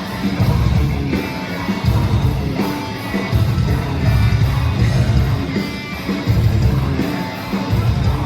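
Metalcore band playing live and loud: distorted electric guitars over heavy bass and pounding drums.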